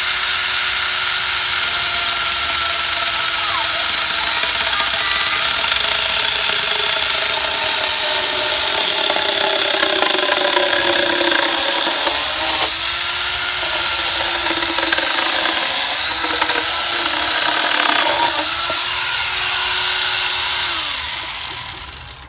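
Mitsushi angle grinder fitted with a chainsaw adapter, its motor whining at high speed as the chain cuts through fairly hard wood. The pitch sags several times as the cut loads the motor, and the tool winds down near the end.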